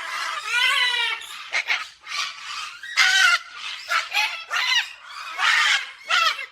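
Cockatoo squawking in a rapid run of short, loud calls, several of them arching up and down in pitch.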